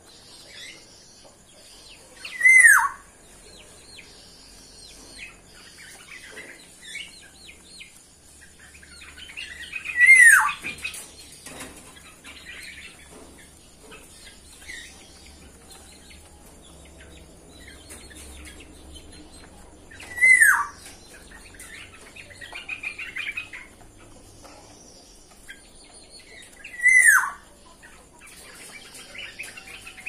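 Bird giving a loud, short call that slides downward in pitch, four times about seven to ten seconds apart, with softer chirping and twittering between.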